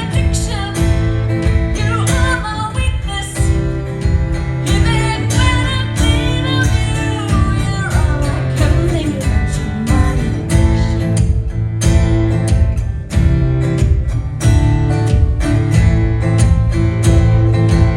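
Live band music: strummed acoustic guitar over a steady beat, with a singing voice in roughly the first half.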